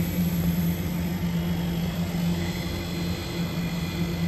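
Compressors of a Daikin VRV III outdoor unit, including the newly replaced inverter compressor, running with a steady low hum just after starting up in test mode.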